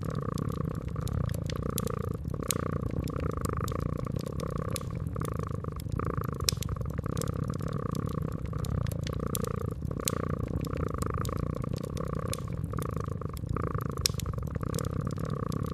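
A domestic cat purring steadily, a low rumble that swells and eases in a slow breathing rhythm, over the crackle and pop of a wood fire with many sharp snaps.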